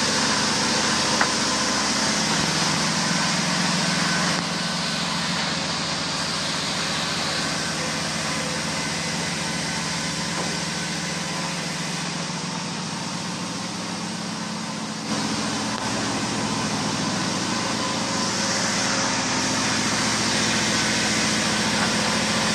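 An engine running steadily: a constant low hum with hiss above it, its tone and loudness shifting a few times.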